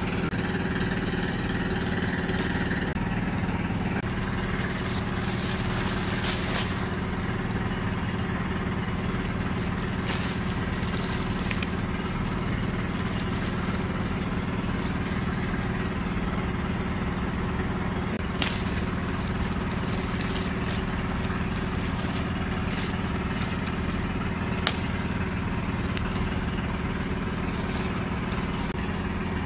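A steady low mechanical hum with a few short clicks.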